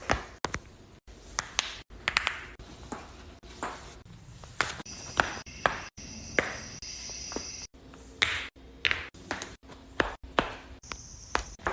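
Joints cracking: a string of sharp pops and clicks, some singly and some in quick clusters of two or three.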